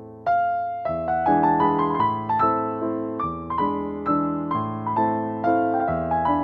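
Background piano music: a gentle melody of struck notes over chords, each note fading after it is played, with a short lull just before a new phrase starts.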